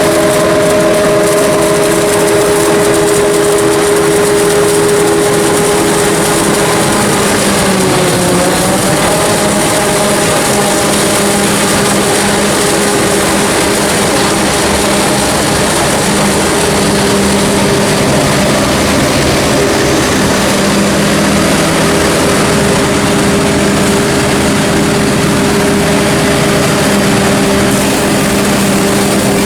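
Forage harvester and tractor engines running steadily during maize silage harvest, with a brief dip in engine pitch about eight seconds in.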